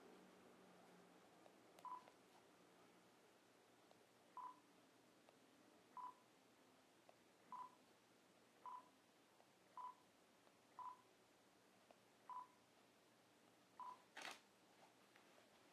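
Faint, short single-pitch beeps, about nine at irregular intervals, from a Nikon Z6's focus-confirmation beeper as focus is set by touch through remote live view; near the end a sharp camera shutter click as a picture is taken.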